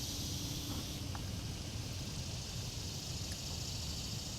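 Outdoor ambience: a steady high-pitched insect drone over a low rumble, with a brief low hum in the first second.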